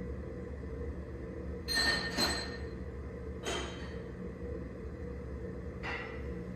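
Hard metal objects clinking four times, two in quick succession about two seconds in, then one more at about three and a half seconds and one near the end, over a steady low hum.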